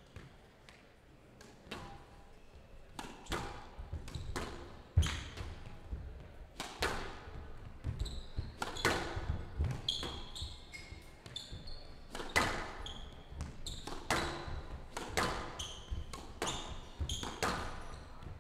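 Squash rally: the ball cracking off racquets and the walls about once a second, echoing in the hall, with short high squeaks from shoes on the court floor. Only a few faint knocks come in the first three seconds, before the rally gets going.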